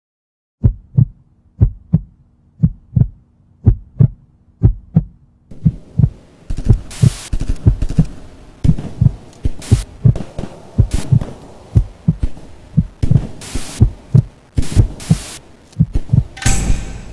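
Heartbeat sound effect: paired low thumps about once a second over a faint steady hum. After about five seconds a hiss comes in, the thumps come faster, and short sharp bursts of noise cut across them.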